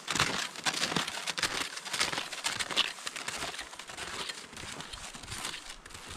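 Footsteps crunching in snow: an irregular run of crisp crunches, about two to three a second, growing fainter in the last couple of seconds.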